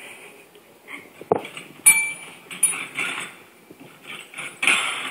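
Silver tap bell on a tile floor dinging as a puppy paws at it. It rings sharply about two seconds in and again near the end, with knocks and scrabbling in between.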